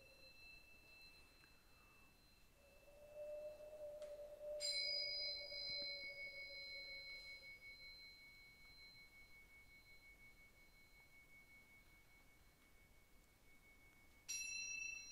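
Quiet struck metal instruments ringing with long pure tones. A soft low tone swells and fades in the first half; a sharp strike about a third of the way in leaves a single steady high tone ringing for about ten seconds, and a second strike near the end starts a new, higher ringing.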